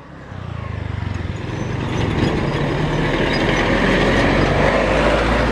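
Engines of a small truck and a pickup driving over the level crossing, growing louder over the first two seconds as the pickup comes past close by, then holding steady.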